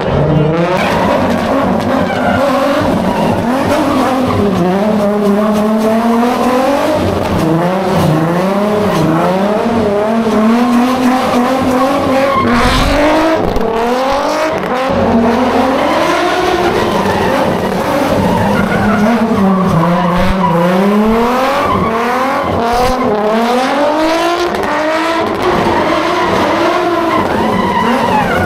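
Car engine revving hard, its pitch climbing and dropping again and again, with tyres squealing and skidding as the car drifts or spins its wheels.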